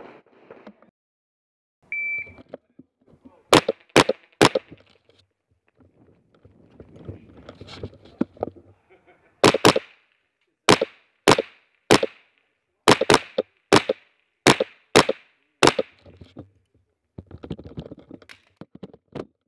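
Rifle fire heard from the gun itself in an indoor range, each shot followed by a brief echo. A short beep comes first, then three quick shots, a pause, and a string of about eleven shots in pairs and singles over some six seconds.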